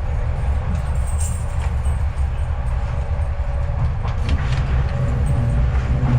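Docklands Light Railway train heard from inside the carriage: a steady low rumble, with a few clicks about four seconds in.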